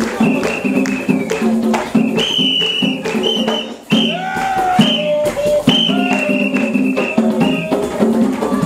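Upbeat African-style dance music with rattles and shakers over a steady beat and a high repeating melodic line; it drops out briefly just before four seconds in, then picks up again.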